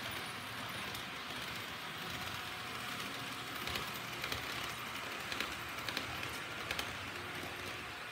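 HO-scale model trains running on the layout's track: a steady whir from motors and wheels, with a scattering of short sharp clicks in the middle as the wheels pass over the track.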